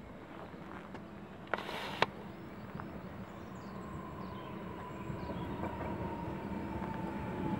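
EN98 electric multiple unit approaching, its rumble growing steadily louder, with a thin whine that slides slowly down in pitch as the train slows for the platform. About a second and a half in, a short burst of noise ends in a sharp click.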